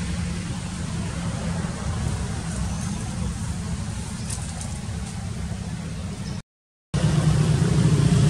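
Steady low outdoor rumble with a faint hiss above it. It drops to dead silence for half a second about six and a half seconds in, then comes back louder.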